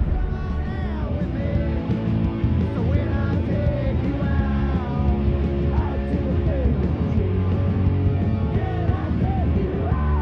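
Rock music with guitar and a singing voice over a heavy bass.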